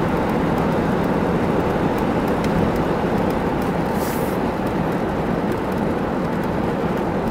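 Cabin noise of a 1988 Buick Electra Estate wagon cruising, its V8 engine and the tyres on the road making a steady drone. There is a brief hiss about four seconds in.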